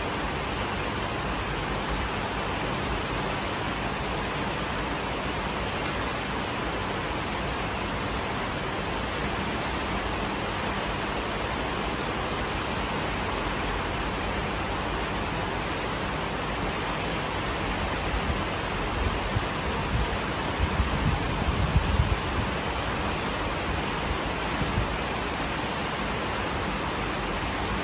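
Heavy rain falling steadily, an even dense hiss. About two-thirds of the way in, low rumbles come and go for several seconds.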